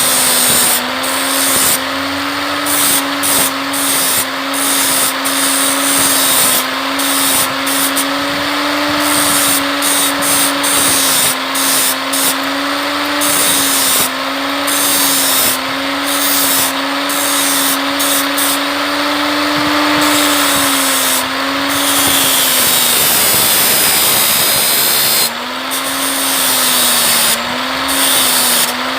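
Small handheld electric power tool running continuously, its motor whine sagging and recovering repeatedly as it bears on the work. It stops for about three seconds past the middle, then runs again.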